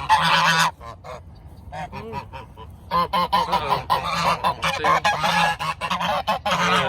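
Geese honking loudly in greeting: a burst of honks at the start, a quieter stretch, then steady repeated honking from about three seconds in.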